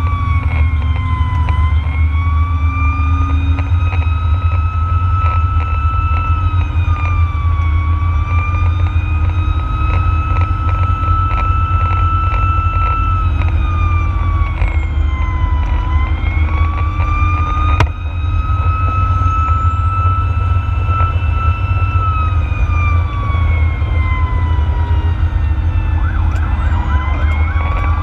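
Fire engine's siren wailing, its pitch sweeping slowly down and back up about every six to seven seconds, over a heavy low rumble of engine and road noise. Near the end a faster warbling siren tone joins in.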